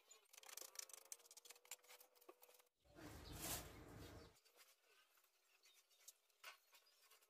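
Near silence with faint scattered clicks and ticks, and a brief louder rustling noise about three seconds in that lasts about a second and a half.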